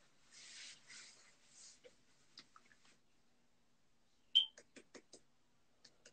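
A breathy exhale in the first second or two, then a brief sharp squeak about four seconds in, followed by a quick run of soft clicks, all heard faintly through a phone's microphone.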